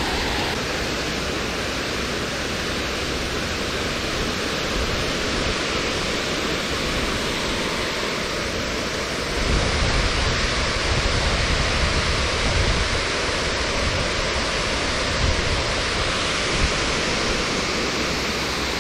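Steady rushing hiss of wind against the microphone, with heavier, uneven low buffeting from gusts starting about halfway through.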